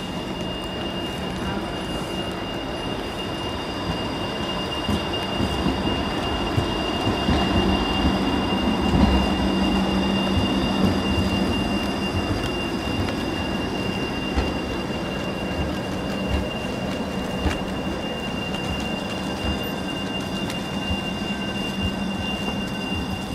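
Articulated electric tram passing close by at low speed on street track: a steady motor hum and a thin high whine over the rumble of wheels on the rails, loudest about nine seconds in, with a few light clicks later.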